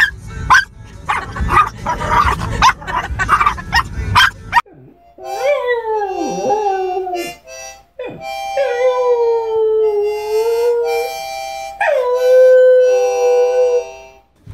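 A dog howls along to a harmonica, three long howls whose pitch slides up and down over the harmonica's held chords. Before that, for about the first four and a half seconds, a dog gives quick yips over low car road noise.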